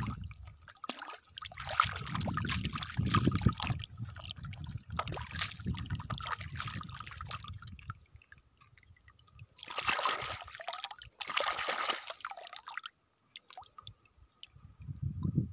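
Shallow muddy water sloshing and trickling as plastic toy trucks are pushed and lifted through it by hand. The sound comes in uneven stretches, with two short splashy bursts past the middle.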